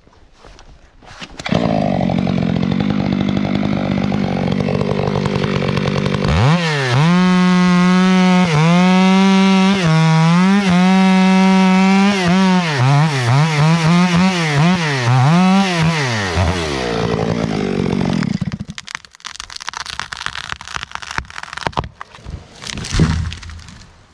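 Two-stroke chainsaw running steadily, then opened to full throttle for about ten seconds on the felling cut, its pitch dipping again and again as the chain bogs in the wood, before it drops back and stops. Then crackling and one loud thud near the end as the tree goes over.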